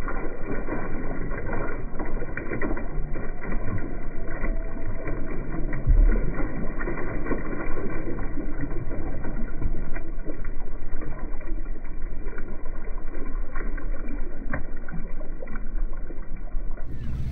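Water splashing and sloshing as live sardines are scooped with a dip net and dumped into a boat's bait tank, with many small irregular splashes over a steady rumble of the running boat.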